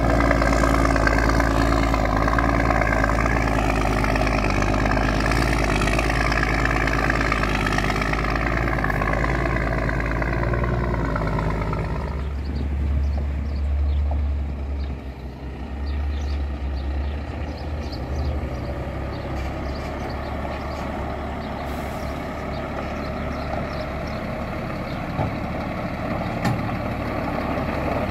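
Scania tractor-trailer's diesel engine working hard under load up a dirt grade, a steady low drone with a slightly wavering pitch. About twelve seconds in the sound changes abruptly to the same truck heard from farther off, a lower, deeper engine hum that grows a little louder as it comes closer.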